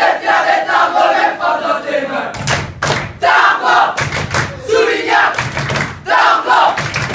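A group of boys chanting and shouting together, with rhythmic banging of hands on the changing-room wall and wooden bench starting about two seconds in, in clusters of quick thuds between the chanted lines.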